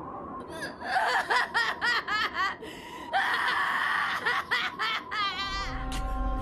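A young man's voice in anguish: a quick string of short, breaking cries, then a long hoarse scream and a fast quavering wail of grief. Low sustained music comes in near the end.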